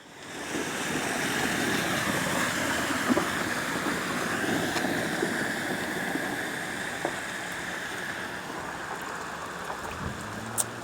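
Storm rain pouring steadily, a dense even hiss of falling and running water, with a few sharp taps. A low steady hum comes in near the end.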